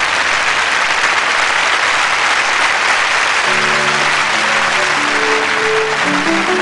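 Studio audience applauding steadily. About three and a half seconds in, the slow sustained chords of a ballad's backing music come in beneath the applause.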